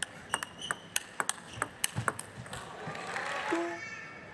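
Table tennis rally: the ball clicks sharply off the bats and the table, several hits a second. About three seconds in comes a brief swell of crowd noise.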